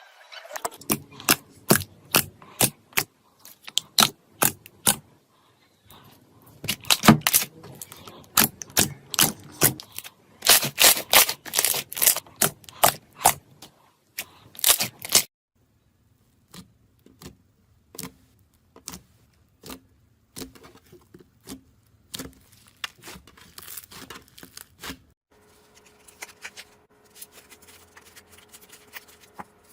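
Slime being squeezed and pressed by hand, giving rapid sharp clicks and crackling pops. The clicks become softer and sparser about halfway through, and near the end a faint steady hum runs under them.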